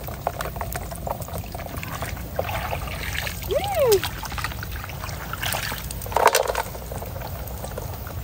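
Muddy water trickling and pouring as a plastic basket is scooped through a shallow ditch and lifted out to drain, with a few louder splashes, the biggest about six seconds in. A short tone that rises and falls is heard about halfway through.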